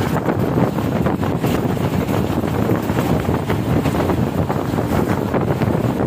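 Steady wind buffeting the microphone of a camera held out of a moving train, over the low running rumble of the train.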